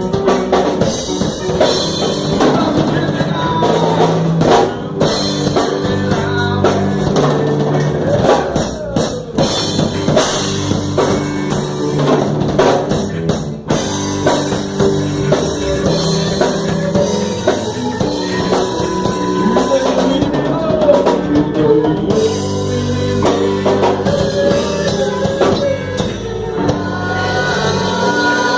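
A live band playing a gospel hymn: drum kit keeping a steady beat with bass drum and rimshots, under bass, electric guitar and keyboard.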